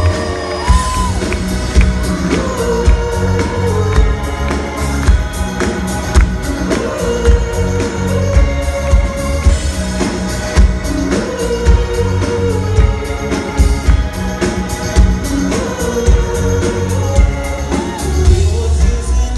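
Live pop-rock band playing a song: a male lead singer over drums, electric guitar, bass and keyboards, with a steady drum beat.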